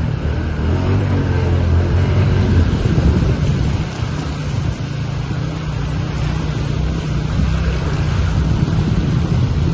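A steady low engine-like rumble with an even hiss over it.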